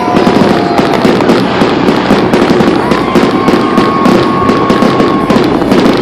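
A fireworks display going off in dense, continuous succession: a rapid run of crackles and bangs with no break.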